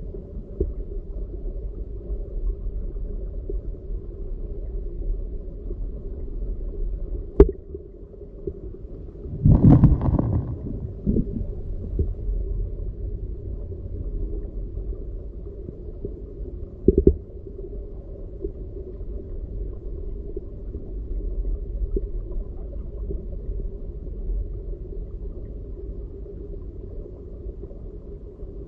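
Underwater sound of a stream bed picked up by a submerged camera: a low, steady rumble of moving water. A sharp click comes about seven seconds in, a louder jumble of knocks around ten seconds, and a brief knock near seventeen seconds.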